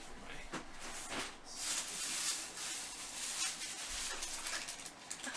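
Rustling and scraping of trading cards and their packaging being handled, in irregular strokes with a denser stretch in the middle.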